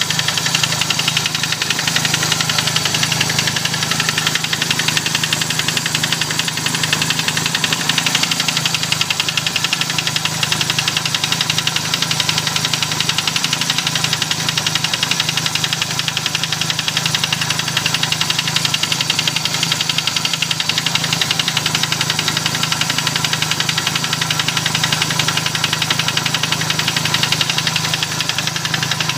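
Toyota MR2 engine running steadily with a fast, even ticking over its hum, an odd sound that the owner suspects comes from the cylinder head.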